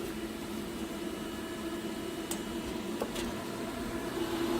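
Steady electrical and mechanical hum of a HAAS VF-2SS CNC vertical machining center standing powered up, with a few light clicks a little past halfway through.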